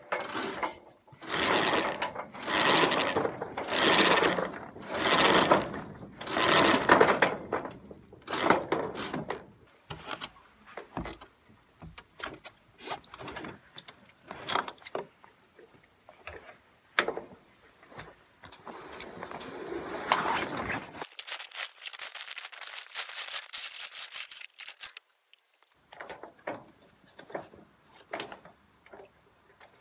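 Sailboat rigging rattling and clicking as the mainsail is taken down at the mast: the halyard, blocks and sail slides working. There is a run of loud, evenly spaced bursts in the first several seconds, then scattered clicks, with a stretch of hiss a little past the middle.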